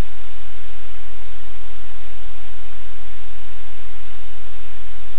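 Loud, steady static hiss with a low hum under it, unchanging throughout.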